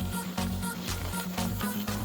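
Background electronic music with a steady beat and a pulsing bass line.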